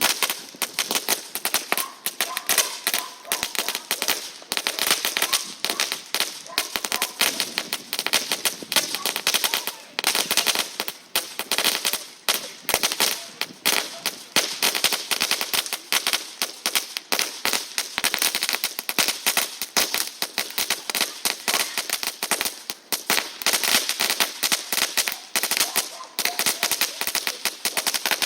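Fireworks crackling: a dense, rapid, unbroken run of sharp pops, many a second, like a string of firecrackers.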